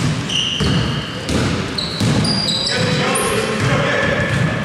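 Basketball game play: the ball bouncing on the court, sneakers squeaking again and again, and players' voices.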